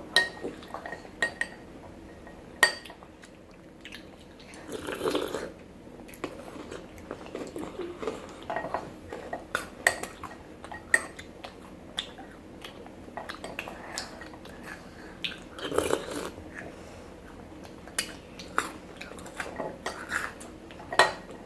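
Spoon clinking against a bowl at irregular intervals as Maltesers in milk are scooped and eaten, with some chewing; two longer scraping or crunching stretches come about five and sixteen seconds in.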